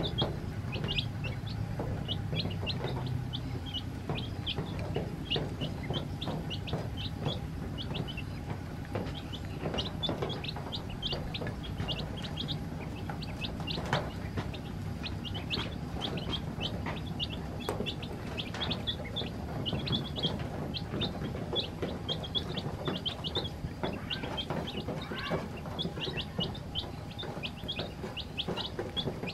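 A brood of chicks and ducklings peeping continuously in short, high chirps, several a second, with scattered taps of bills pecking feed off a wet tabletop.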